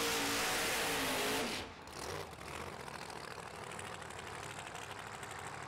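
A drag-racing car's engine running steadily and fairly faint, stopping abruptly about a second and a half in and leaving a quieter, even background noise.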